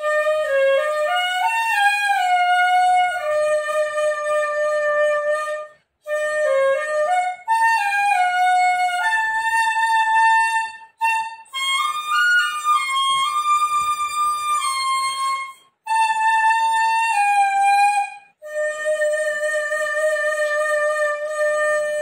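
Old black bamboo dizi in the key of F (Chinese transverse flute) playing a slow solo melody of held notes that step up and down. The phrases are broken by brief pauses for breath.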